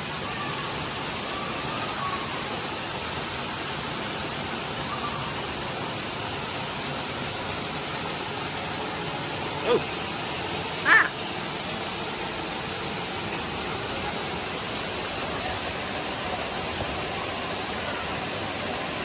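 Steady rushing hiss in the cave, with two brief sharp sounds about ten and eleven seconds in.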